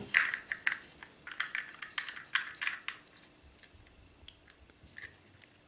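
Hard plastic parts of a Scosche Magnetic E2 Dash Window phone mount clicking and rubbing as they are pressed and twisted together by hand. Quick small clicks come over the first three seconds, then a few fainter, sparser ones.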